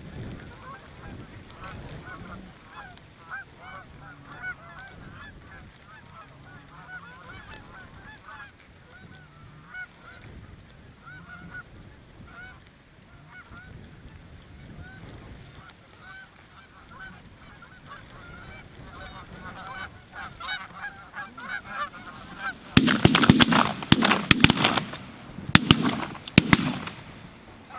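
A flock of Canada geese honking overhead, many short calls overlapping without pause. About 23 seconds in, a cluster of much louder sharp bangs or cracks sounds in two groups over roughly four seconds.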